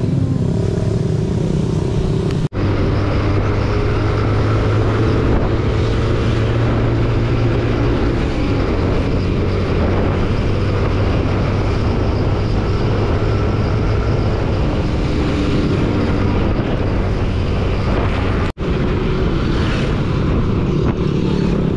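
Motorcycle engine running, first ticking over, then under way on a city road at about 60 km/h with wind noise on the microphone. The sound drops out sharply for a moment twice, at the edits.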